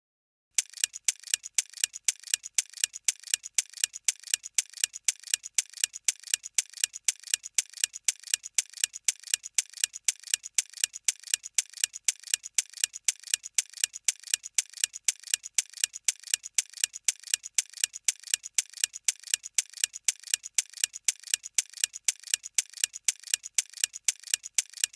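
Ticking clock sound effect, an even run of crisp ticks that alternate louder and softer. It serves as a thinking timer while the quiz question is on screen.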